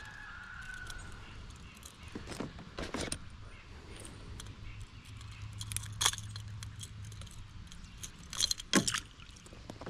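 Treble hooks of a topwater popper and metal fishing pliers clicking and jingling as the hooks are worked out of a smallmouth bass's mouth. A few sharp clicks stand out, the loudest about six seconds in and again just before the end.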